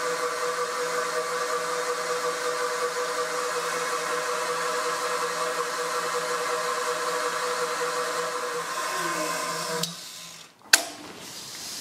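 Milling machine running with a 3D-printed plastic face-mill cutter carrying carbide inserts, taking a light 0.2 mm cut into a 3D-printed plastic block: a steady whir with a hum. Near the end the whir cuts off suddenly and a single sharp click follows.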